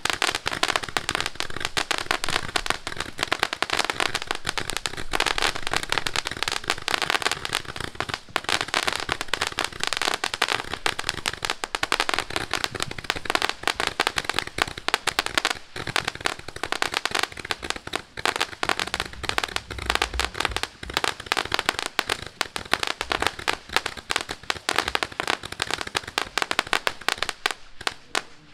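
Pyro Plug PPC01 'Minigun' roman candle firing a rapid, unbroken stream of shots and crackles, thinning out just at the end.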